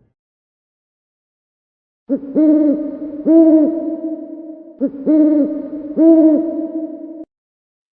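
Owl hooting: after about two seconds of silence, two series of low hoots, each a short note followed by two longer hoots that rise and fall in pitch. The calls stop abruptly near the end.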